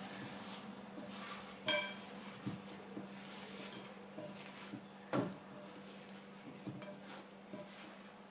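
A bowl and its cover clinking and knocking as they are handled: one ringing clink a little under two seconds in, a duller knock about five seconds in, and a few light taps.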